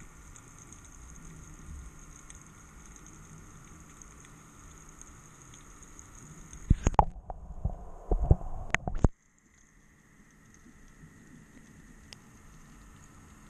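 Underwater ambience picked up by a GoPro in its housing: a steady hiss with faint scattered crackling. About halfway through, a cluster of loud knocks and low thumps sounds for a couple of seconds. The sound then cuts off abruptly and the hiss slowly returns.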